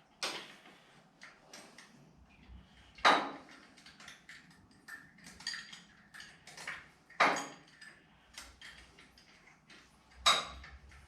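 Wrench and metal hand-tool work on engine bolts: light clicks and clinks throughout, with four louder metallic clanks about three to four seconds apart.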